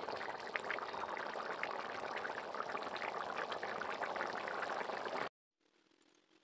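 Eel, squash and potato curry boiling hard in a metal wok: a dense bubbling with many sharp pops. It cuts off suddenly about five seconds in, leaving only faint background.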